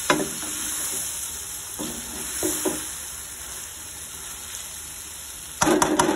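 Vermicelli with chicken and vegetables frying in an aluminium pan, sizzling with a steady hiss, while a wooden spatula stirs and tosses it, scraping the pan in short strokes near the start, a few times about two seconds in, and more loudly near the end.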